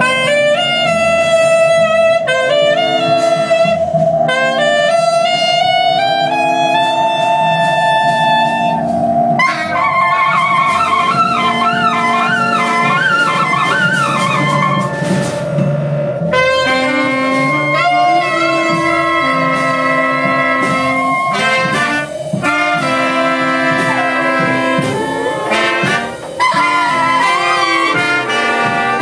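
Live big-band jazz from a saxophone and brass section: long held horn notes over a repeating low riff. Midway, a wavering, bending solo line rises above the band for a few seconds.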